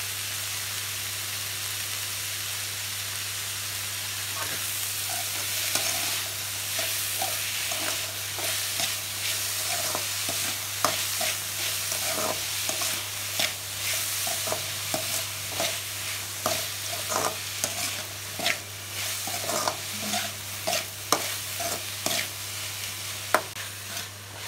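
Onions and tomatoes sizzling as they sauté in oil in a hammered metal kadai. From about five seconds in, a metal ladle stirring the pan makes repeated scrapes and clinks against the pan.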